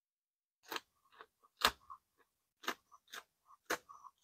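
Close, crisp crunching of a raw green vegetable being bitten and chewed: sharp crunches roughly a second apart with smaller crackles between, starting under a second in.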